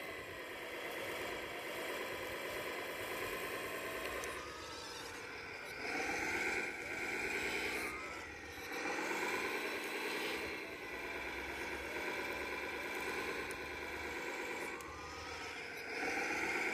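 Motors of a 1/14 scale radio-controlled CAT excavator whining as the boom, arm and bucket move, in spells of a few seconds whose pitch dips and rises with each movement.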